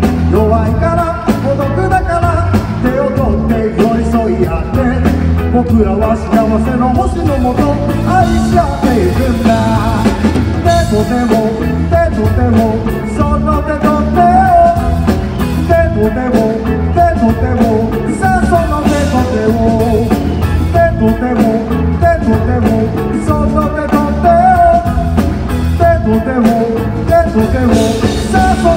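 A rock band playing live through an arena PA: a male lead vocalist sings over electric guitars, bass and a steady drum-kit beat.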